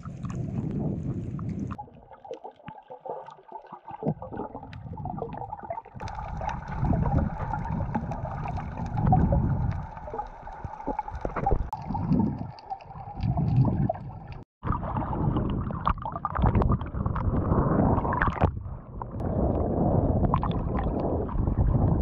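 Water sloshing, gurgling and splashing around a waterproof action camera as it bobs at the surface and dips under while snorkeling. The sound swells and falls unevenly and is cut off abruptly a few times.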